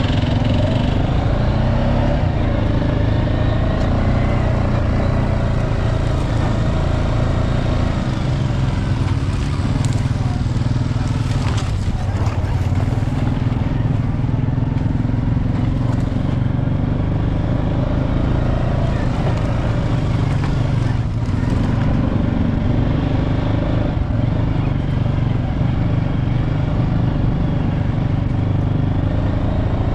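ATV (quad bike) engine running steadily while riding over a sandy dirt track, its pitch rising and falling a little with the throttle.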